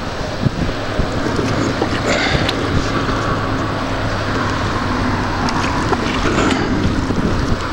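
Wind buffeting the microphone over moving river water as a wooden dugout canoe is paddled, with a few sharp knocks scattered through.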